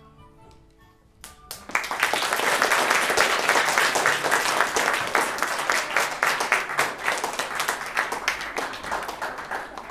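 The last marimba notes ring away, then an audience breaks into applause about a second and a half in, thinning out near the end.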